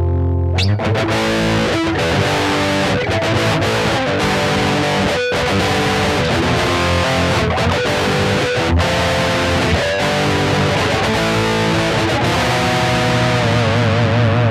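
Distorted electric guitar through an effects unit playing a lead solo: a held chord gives way about half a second in to a run of quick picked notes, and near the end a long held note wavers with wide vibrato.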